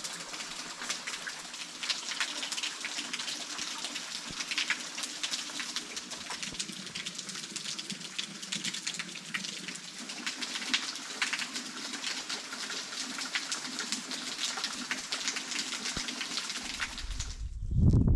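Steady patter of falling water, like rain, dense with small drop ticks. It cuts off just before the end, giving way to a louder low rumble.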